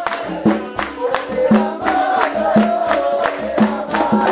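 Capoeira roda music: a group singing together over a steady percussion beat, with the jingling strikes of a pandeiro.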